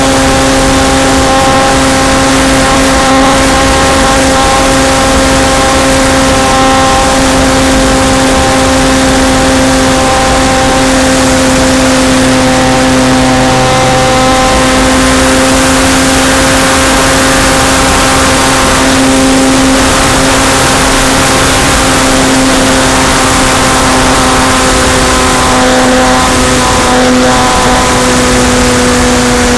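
A model airplane's motor and propeller heard from on board in flight: a steady, loud droning pitch with a ladder of overtones over constant wind rush, the pitch dipping slightly near the end.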